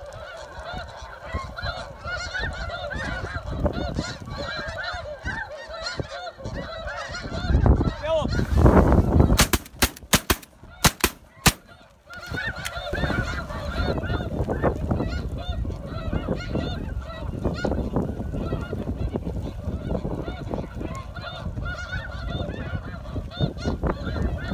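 A flock of snow geese calling overhead, a dense chorus of many overlapping honks. About eight seconds in there is a loud low rumble, then about six sharp cracks over the next three seconds before the calling takes up again.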